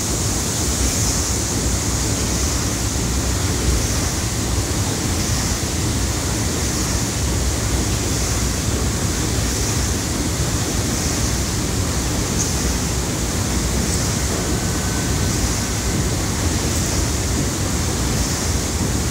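Sulzer paddle-steamer steam engine running under way, heard in its engine room: a loud, steady rushing hiss over a low rumble.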